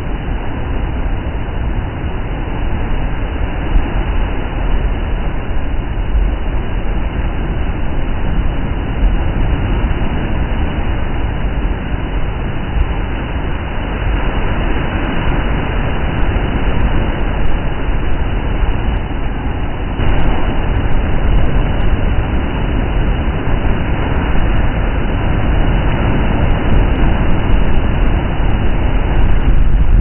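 Sea surf breaking against rocks and a cliff base: a steady, deep roar of waves and churning water that grows louder about two-thirds of the way in.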